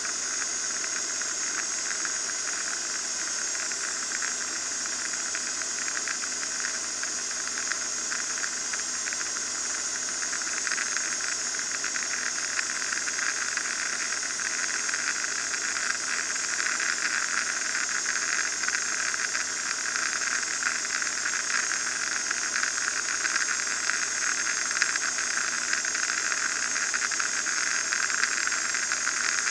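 Steady in-flight cabin noise of an RV-9A light aircraft: engine, propeller and airflow blend into an even hiss, growing slightly louder past the middle.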